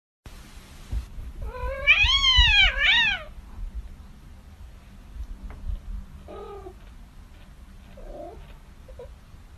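A cat gives one loud, drawn-out meow that rises and falls in pitch, about two seconds in, followed by a few faint short meows.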